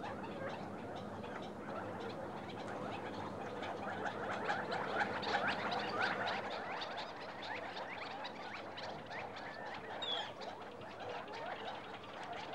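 Many birds chirping and chattering at once in a dense, overlapping chorus. A clearer short whistled note stands out near the end.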